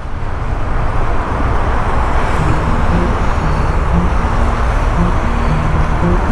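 Steady rumble of heavy road traffic and engine noise, with wind on the microphone, from riding slowly close behind an oversize lowbed truck. Faint short musical notes sound underneath.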